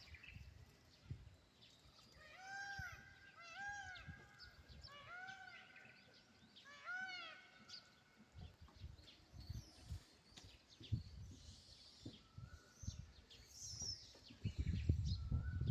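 Faint animal calls: a run of about six short calls, each rising then falling in pitch, in the first half, with a few fainter calls near the end.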